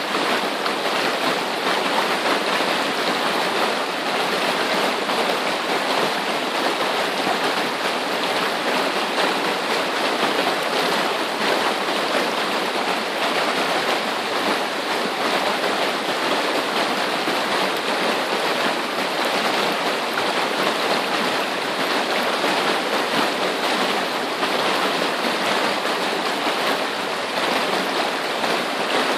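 Small waterfall in a mountain river pouring over boulders into a pool: a steady, even rush of water.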